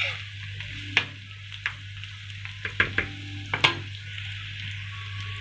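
Chopped onions and green chillies with a mustard-seed and chana dal tempering sizzling steadily as they fry lightly in oil in a pan, stirred with a spatula, with a few sharp clicks scattered through.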